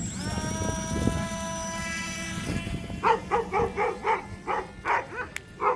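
Small electric motor of a 3D-printed flying wing's pusher prop spinning up to a steady high whine. From about three seconds in, a dog barks and yips rapidly, several times a second.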